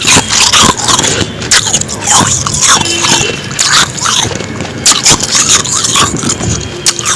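Powdery frost ice being bitten and chewed: a dense, irregular run of crackly crunches.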